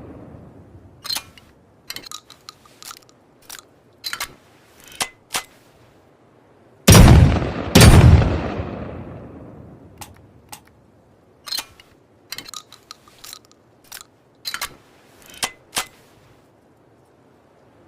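Makeshift double-barrel shotgun firing both barrels, two loud shots about a second apart with a long fading echo. They are framed by bursts of short, sharp mechanical clicks and clacks of the gun being handled, before and after the shots.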